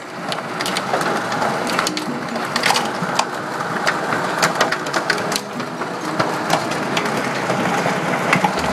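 Heavy hail pelting pavement and a parked car: a dense, steady clatter of countless small impacts, with many sharper individual cracks as stones strike hard surfaces.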